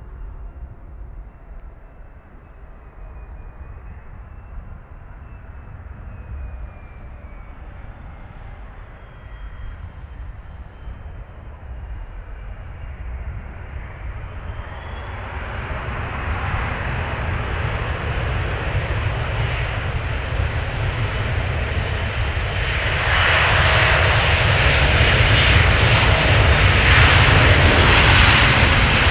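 Jet airliner engines roaring as the aircraft comes closer, growing steadily louder from about halfway through and loudest near the end.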